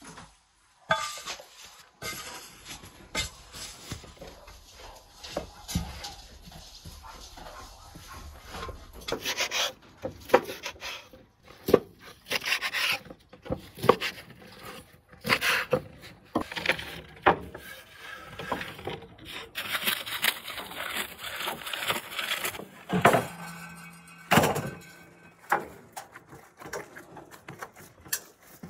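Food-preparation sounds: a knife cutting grilled sausages against a wooden board in a run of sharp strokes, and a large mass of dough being pressed and kneaded by hand.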